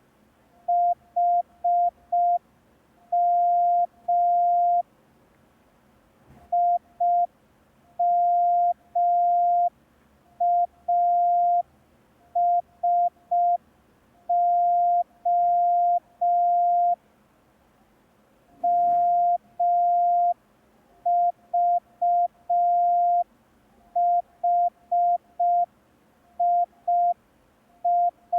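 Morse code practice tone: a single steady beep keyed on and off in short dots and longer dashes, sent slowly as groups of five random letters with pauses between groups, for copying by ear.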